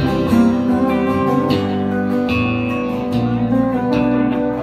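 Live country band playing an instrumental passage between sung lines: a strummed acoustic guitar with electric guitar and pedal steel guitar holding sustained notes.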